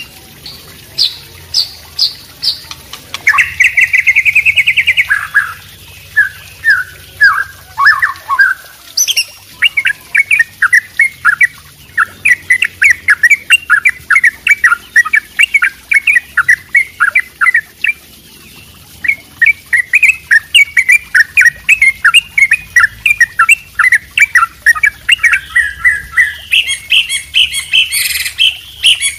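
Songbirds singing, from a combined recording of white-rumped shama, wambi and yellow-vented bulbul: a fast trill a few seconds in, then a long run of quick repeated chattering notes, turning higher near the end.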